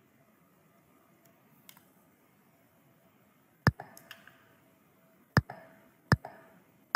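Computer mouse clicking: after a few seconds of faint room tone, four sharp clicks come over the last three seconds, with a few quieter ticks between them.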